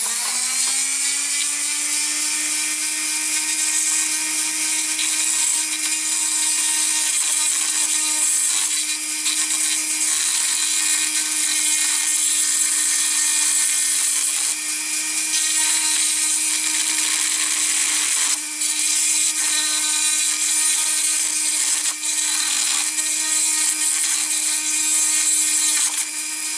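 Dremel rotary tool with a very small grinding bit spinning up at the start, then running steadily at one high pitch as it grinds down the ends of a diecast model's wheel axle. The pitch dips briefly twice in the second half as the bit bears on the metal.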